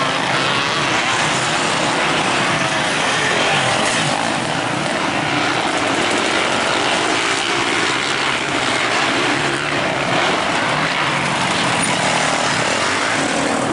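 Several motocross dirt bikes racing on the track, engines revving, their pitch rising and falling as the riders work the throttle.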